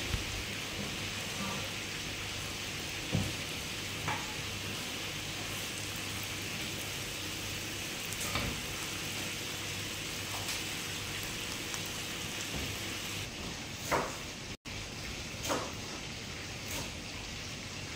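Chicken coated in chilli spice paste sizzling in a frying pan, a steady even hiss with a few soft knocks. After about thirteen seconds the sizzle gives way to a few sharper knocks and clicks.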